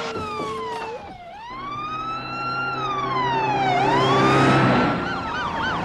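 Police car siren wailing in slow rising and falling sweeps, each a second or more long. Quicker up-and-down sweeps overlap it near the end.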